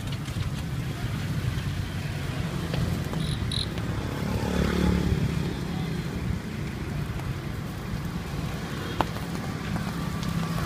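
Outdoor street-market ambience: a steady low rumble of traffic, with one vehicle passing close by, loudest about four to five seconds in.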